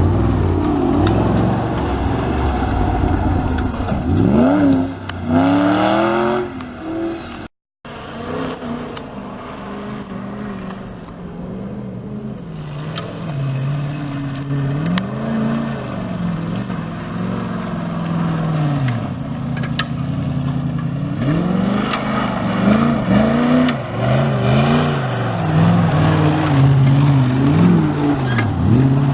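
Off-road 4x4's engine revving up and down again and again, its pitch rising and falling with the throttle, with a short dropout about a quarter of the way in.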